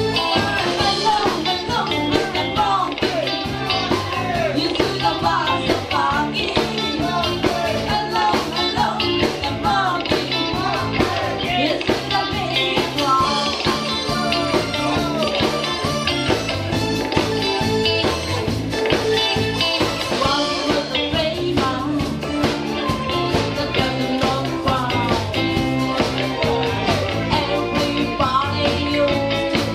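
Live band playing a disco-style song: female vocals over electric guitar, keyboard and drums, with a steady beat.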